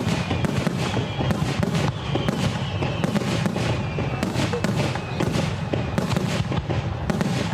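Aerial fireworks display: a dense, fast run of shell bursts, bangs and crackles, one after another.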